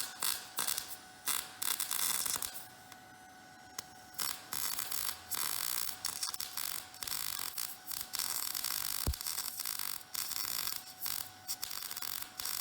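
Electric arc welding: the arc crackles and hisses in on-off runs as a bead is laid on a steel trailer tongue. Several short runs come first, then after a brief pause a longer, nearly continuous run with a few short breaks.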